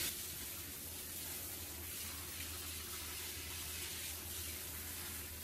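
Water spraying steadily from a shower head, rinsing a dog's coat.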